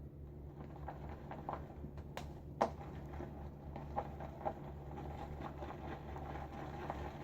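Badger shaving brush working thick shaving-cream lather in a bowl: irregular soft wet squelches and taps, with a sharp click about two and a half seconds in, over a steady low hum.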